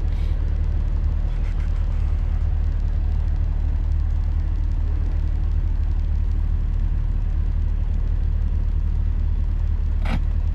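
Norfolk Southern manifest freight train's autorack cars rolling past at speed, a steady low rumble heard from inside a car.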